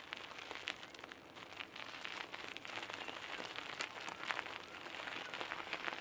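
Bicycle tyres rolling over a gravel path: a continuous crunching crackle of small stones with many tiny clicks.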